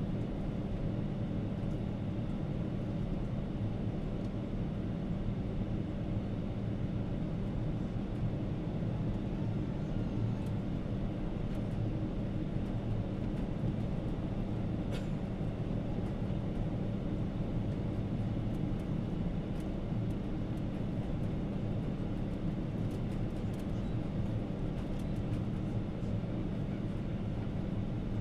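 Steady low cabin roar of a Boeing 777-300 airliner in descent, engine and airflow noise heard from inside the passenger cabin, with a low hum underneath.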